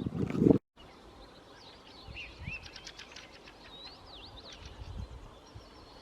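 Small birds chirping and whistling repeatedly in the background. In the first half second a loud low rumble of wind on the microphone, which cuts off abruptly.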